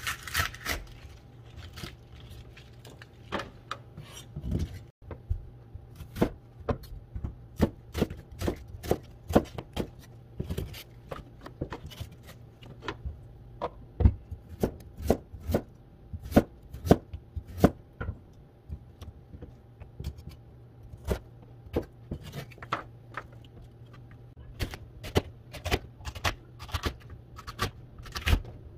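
Chef's knife chopping vegetables (green onion, carrot, green chili peppers) on a plastic cutting board: a run of sharp knocks as each cut strikes the board, one to three a second with short pauses. A faint low hum runs steadily underneath.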